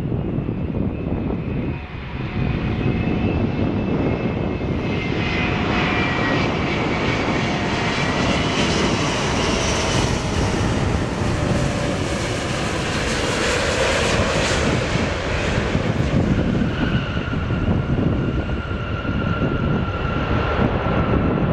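Airbus A380's four Engine Alliance GP7200 turbofans landing: a steady jet noise with a high whine that falls in pitch as the airliner passes close. It is loudest about halfway through, then settles into a steadier whine as the aircraft rolls out on the runway.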